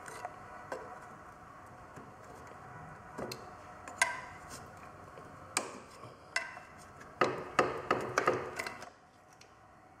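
Flat screwdriver prying at the stuck aluminium side case of a Loncin 80cc pocket bike engine: scattered metal clicks and scrapes at the seam, coming thick and fast about seven to nine seconds in.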